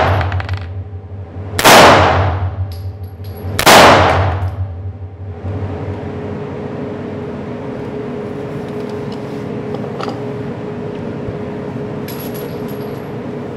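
Two shots from a Bersa Thunder Pro 9 mm pistol fitted in a Delta Titan carbine kit, about two seconds apart, each echoing off the walls of an indoor range. After them there is only a steady hum.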